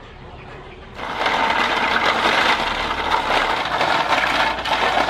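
River snails' shells clattering and grinding against each other and the aluminium basin as they are rubbed by hand in salted water: a dense, rapid rattle of many small clicks that starts about a second in.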